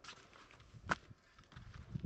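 Light, irregular scuffs and knocks, with one sharper click about a second in.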